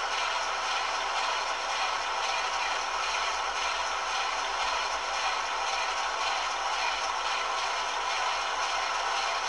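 Steady, fast mechanical clatter and whir at an even level throughout, with nothing low and heavy in it.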